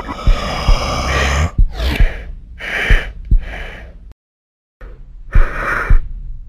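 Electronic music soundtrack with kick-drum hits and swept noisy effects. It cuts out completely about four seconds in, then comes back with two more hits.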